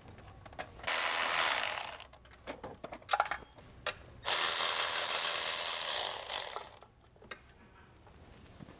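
Power ratchet spinning in two bursts, a short one about a second in and a longer one of about two and a half seconds midway, backing out the bolts of the AC-compressor-to-intake-manifold brace, with a few tool clicks in between.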